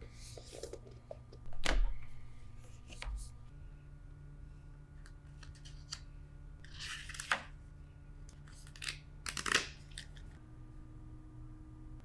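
Cardboard knife box and paper insert cards being handled during an unboxing: sliding, rustling and light tapping, with two soft thumps about two and three seconds in and louder rustles of paper about seven and nine and a half seconds in. A faint steady hum sits underneath.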